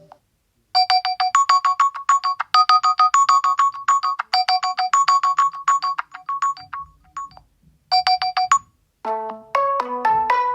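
Nokia 2.4 ringtone previews: a fast electronic trill of short beeps alternating between two pitches, in bursts of about a second with brief gaps. About nine seconds in, a different ringtone starts, a tune of separate stepped notes.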